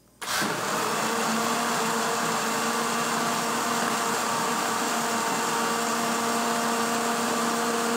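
Countertop blender switching on just after the start and running at a steady pitch as it purées chopped carrot, apple and lemon in water.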